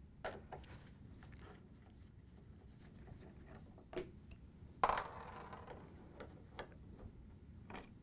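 Faint metallic clicks and taps of a 3/8-inch nut driver working the hex-head screws of a refrigerator's top door hinge, with one sharper click about five seconds in that rings briefly.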